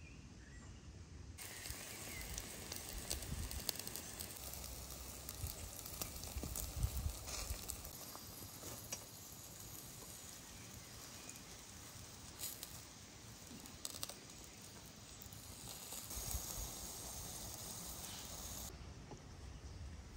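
Meat in a hinged wire grill basket sizzling over hot charcoal, a steady hiss with scattered crackles and pops. It starts abruptly about a second and a half in and stops shortly before the end.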